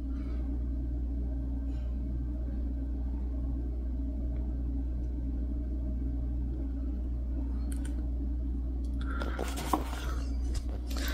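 Steady low electrical hum in a room, with some brief rustling and light clattering near the end.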